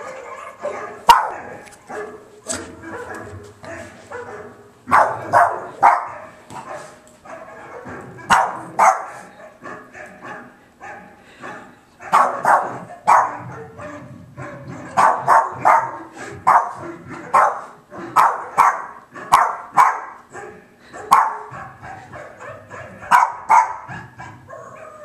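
Dogs barking in short rhythmic groups of two to four, a tune barked out by the dogs of the Volkswagen commercial on a television, heard through the TV's speaker. The Boston terrier watching may be barking along.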